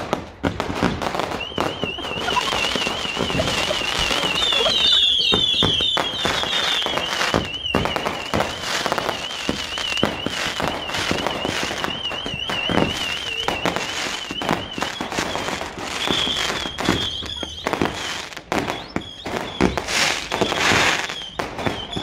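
Fireworks going off overhead: a dense run of bangs and crackles. Through most of it runs a high warbling whistle that wavers up and down several times a second, then steadies for the last few seconds.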